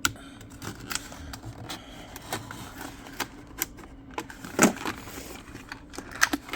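Plastic blister pack and cardboard backing card of a boxed diecast toy car being cracked and pulled open by hand: irregular clicks and crackles, loudest about four and a half seconds in and again near the end.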